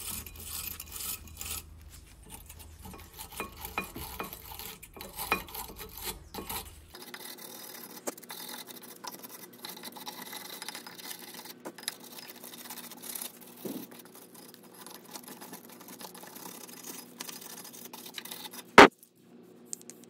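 Hand wire brush scrubbing corrosion off the cast-iron front brake caliper carrier of a Mercedes B-Class W245 where the pads sit, in irregular rasping strokes. A single sharp knock near the end.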